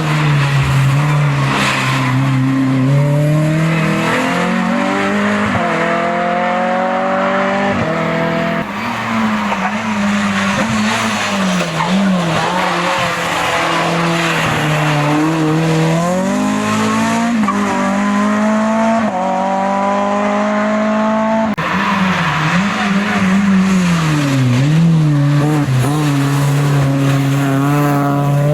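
Hill-climb race car engine at high revs, its pitch climbing through quick upshifts and dropping back again and again as it is driven hard. The sound changes abruptly about three quarters of the way through.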